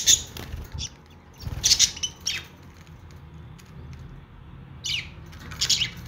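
Budgerigars chirping in short scattered bursts: a cluster of chirps about a second and a half in, then two sharp calls near the end, one sweeping down in pitch.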